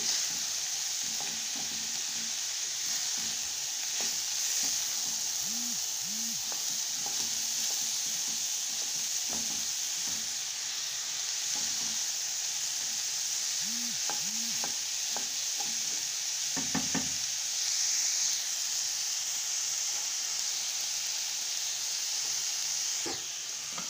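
Diced mixed vegetables sizzling steadily in a hot stainless steel pan, while a wooden spatula stirs them with short scrapes and knocks against the pan.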